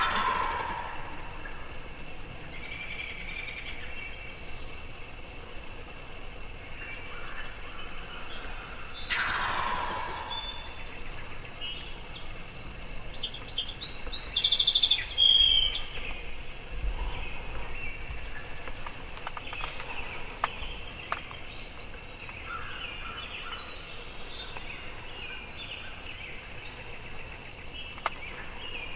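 Wild turkey gobbling twice, each a falling rattle about a second long, at the very start and about nine seconds in. Songbirds chirp throughout, and a burst of high, clear birdsong around the middle is the loudest sound.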